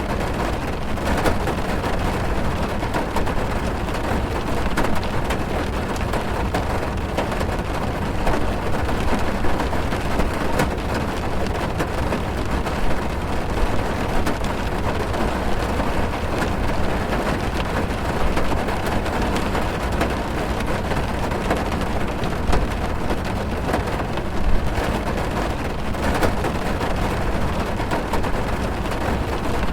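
Heavy rain drumming on a car's roof and windows, heard from inside the car: a steady dense patter with a few louder drops now and then.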